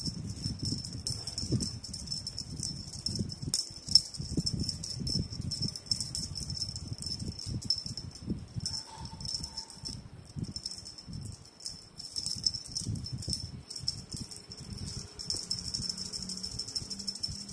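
A kitten scuffling on a bed while it wrestles a wand toy: irregular rustling of the sheet and soft thumps, with one sharp click about four seconds in. Insects chirp steadily in the background.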